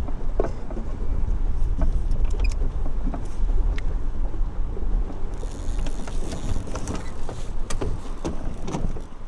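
Wind buffeting the microphone with a steady low rumble, mixed with choppy water slapping against a small fishing boat's hull and scattered light knocks; a brighter hiss joins about five seconds in.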